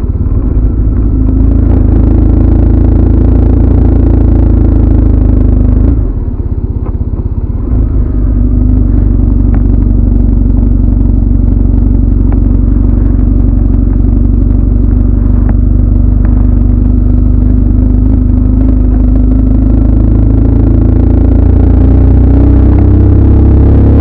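Motorcycle being ridden along a road, its engine running steadily under a heavy low rumble. The engine eases off for a couple of seconds about six seconds in, then pulls again, rising in pitch near the end.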